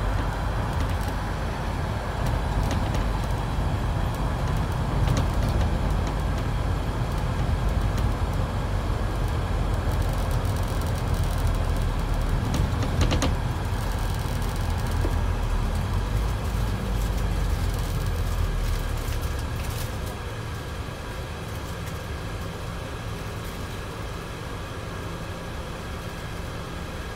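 Scania E400 double-decker bus heard from the upper deck: its diesel engine runs under load with a strong low rumble, then drops to a much quieter hum about two-thirds of the way through as the bus eases off into queuing traffic. A brief rattle halfway through.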